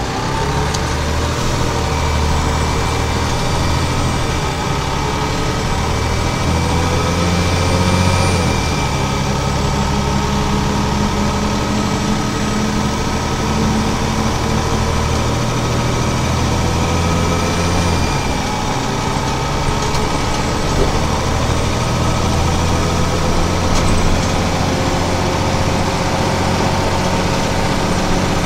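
Scania DSC9 260 hp diesel engine of a Scania CN94UA OmniCity articulated bus pulling away and accelerating, heard on board. The engine pitch climbs, drops about eight seconds in and changes again near eighteen seconds as the ZF 4HP590 automatic gearbox shifts up. A thin high squeal runs above the engine, which the uploader says came from the engine and could not explain.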